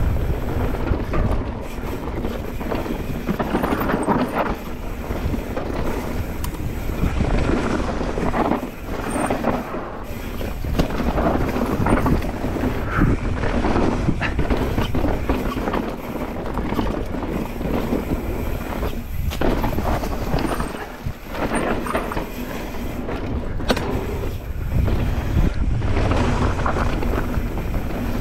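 Mountain bike riding fast down a dirt trail: wind buffeting the camera microphone over the rumble and rattle of tyres and bike on rough ground.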